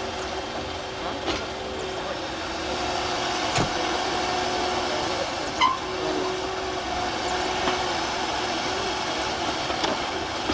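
A heavy machine's engine running steadily, with a few sharp knocks, the loudest about halfway through.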